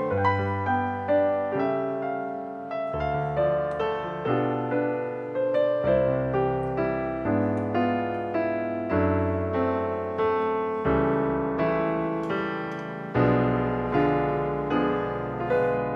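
Background piano music: gentle notes played in a steady, even rhythm, with the bass note changing every few seconds.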